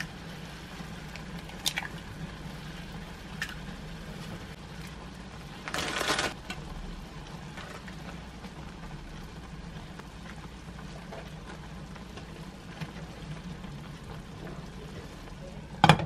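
Tomato sauce simmering in a frying pan on a gas stove, under a steady low hum, with a few small clicks and a brief rustle about six seconds in. Near the end there is a sharp clink as a glass pot lid is set on the pan.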